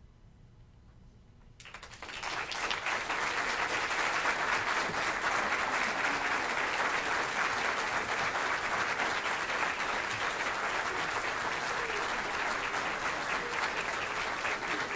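Near silence, then audience applause starts suddenly about a second and a half in and keeps on steadily.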